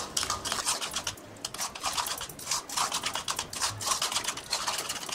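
Metal spoon stirring thick strained curd in a bowl, with quick irregular scrapes and clicks against the bowl's sides, several each second.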